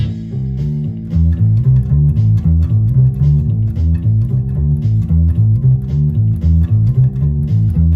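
Electric bass guitar picked with a plectrum, playing a fast repeating riff of low notes, about four notes a second.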